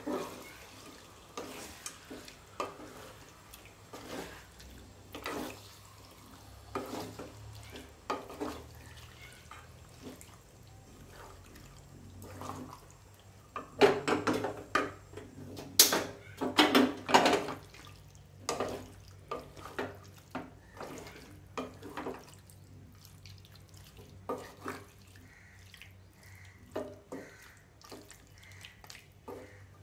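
Wooden spatula stirring raw chicken pieces coated in wet masala in a metal pan: irregular scraping against the pan and wet squishing, busiest and loudest from about 14 to 18 seconds in.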